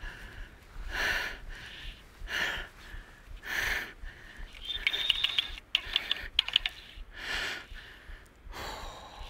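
Fly reel's click ratchet rattling in a run of quick clicks for about two seconds, starting about five seconds in, as line moves on the reel during the fight with a hooked salmon. Around it, the angler's heavy breathing in slow, regular breaths.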